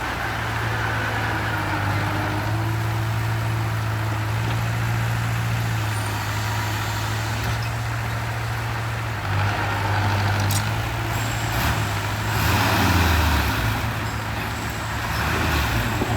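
A heavy vehicle's engine running with a steady low hum, rising in level twice partway through, with one sharp click about ten seconds in.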